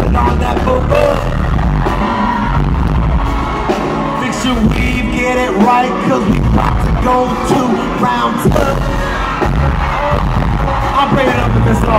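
A male R&B singer singing live with a band: a lead vocal over the band's music, with drum hits.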